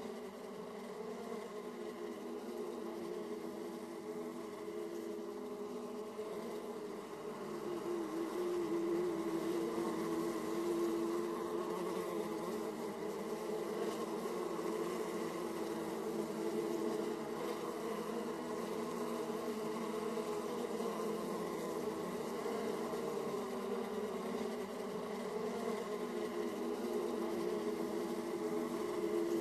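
Honeybees (Carniolan and Italian) buzzing in flight at the hive entrance, a steady mass hum that swells a little about seven seconds in and stays fuller.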